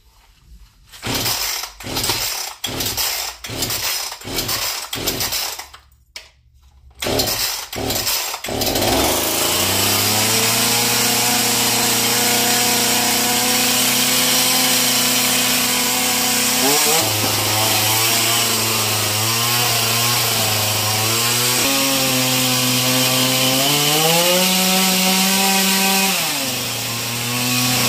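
A brand-new Black Max 18-inch two-stroke chainsaw being pull-started: a string of starter-cord pulls, a short pause, a few more pulls, then the engine catches about nine seconds in. It runs on, its pitch rising and falling as the throttle is worked, revving highest near the end before dropping back.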